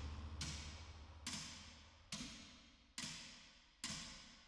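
Faint, slow, evenly paced footsteps on a wooden floor, about one step every second, each step echoing briefly in the room.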